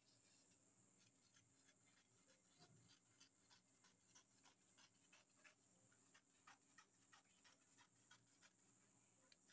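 Faint snipping of fabric scissors cutting through cloth: a run of short, irregular snips, several a second, along with the rustle of the fabric being handled.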